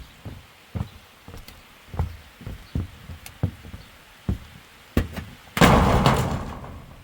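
A series of dull knocks, roughly two a second, then a loud crash about five and a half seconds in that fades away over about a second.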